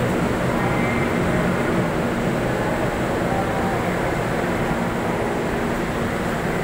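Steady low rumbling noise of a busy MRT-3 rail station platform, railway and crowd noise blended together.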